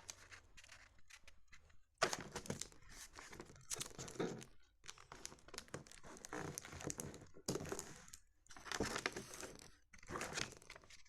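Paper and sticky tape being handled close up: irregular crinkling and tearing rustles.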